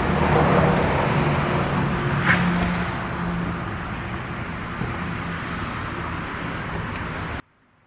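Greenworks 2000 PSI electric pressure washer running, its pump motor humming under the hiss of the water jet from a rotary surface cleaner on concrete. It cuts off suddenly about seven seconds in.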